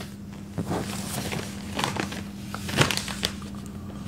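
Newspaper rustling and crinkling as it is handled and lowered, in a string of short rustles, the loudest about three seconds in, over a low steady hum.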